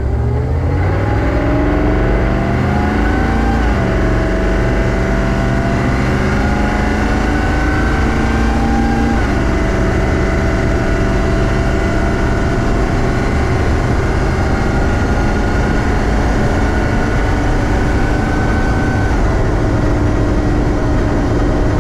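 Humvee (HMMWV) diesel pulling away and accelerating, its automatic transmission upshifting twice, about four and nine seconds in. The engine tone and whine climb between the shifts and drop at each one, then settle into a steady cruise.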